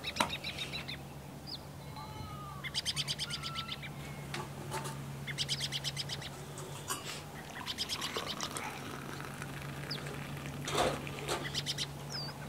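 Small birds chirping in rapid trills of repeated high notes, about four trills spaced roughly two and a half seconds apart, over a steady low hum.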